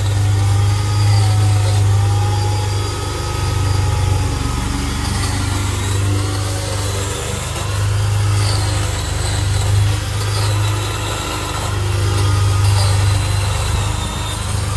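Electric chainsaw running and cutting through brush, its motor pitch rising and falling with the load, swelling in about three long bursts.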